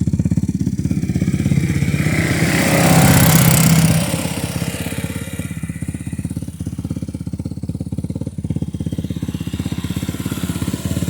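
A vehicle's engine running with a rapid, even firing pulse, with wind buffeting the microphone. It swells louder with a rush of wind hiss between about two and four seconds in, then settles back to a steady run.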